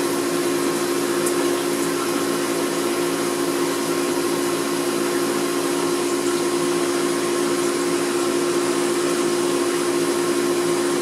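Aquarium pump running with a steady hum over an even hiss.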